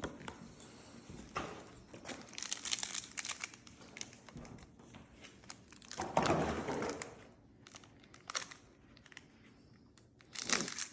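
Foil Pokémon booster pack wrapper crinkling in irregular bursts, with cards being handled; the loudest burst comes about six seconds in, and another near the end.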